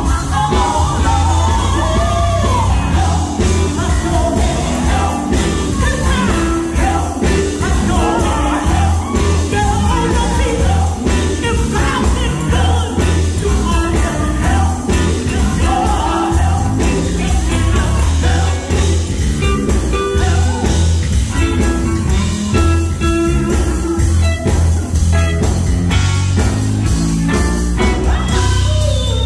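Live gospel music: a group of women singing lead and backing vocals into microphones over a band with electric guitars and a heavy, steady bass line.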